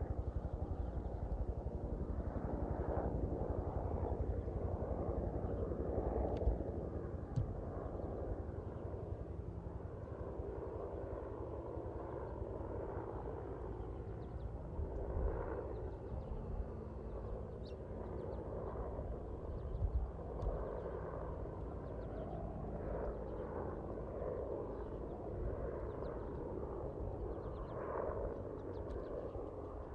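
Outdoor ambience with a steady distant engine rumble and a faint hum, slightly quieter after about six seconds.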